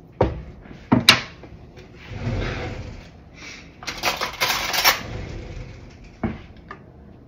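A wooden spoon knocks a couple of times against the rim of a metal soup pot. Then come two stretches of breathy noise, someone blowing on and sipping a spoonful of hot soup to taste it, and one more knock near the end.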